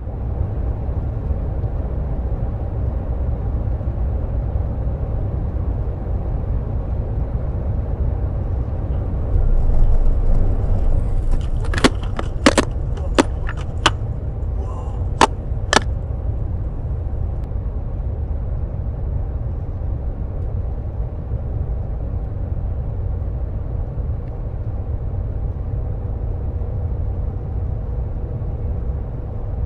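A steady low rumble, with a cluster of about six sharp knocks or clicks around the middle.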